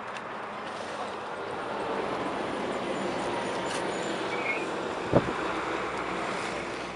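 Steady outdoor rushing noise that swells over the first couple of seconds, with one sharp knock about five seconds in.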